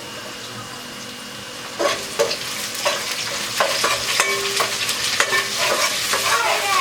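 Onions sizzling as they fry in a pan. From about two seconds in, a utensil scrapes and clicks against the pan again and again as they are stirred.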